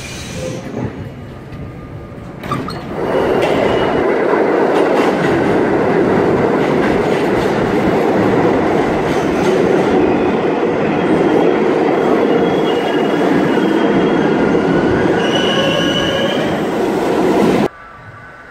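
Budd R32 subway train running into an underground station: a loud, steady rush and rumble of steel wheels on rail, with a faint high squeal near the end, cutting off abruptly. The first couple of seconds hold a quieter, fading train rumble.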